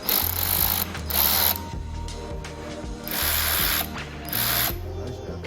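Hercules ratchet wrench clicking in four short runs, each about half a second long.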